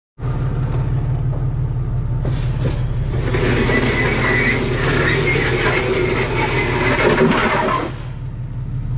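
Jeep Cherokee XJ engine running steadily under load as it tows a loaded trailer slowly over sand, heard from a camera mounted on the outside of the Jeep. From about three to eight seconds in, a louder stretch of rattling and rumbling noise rides over the engine.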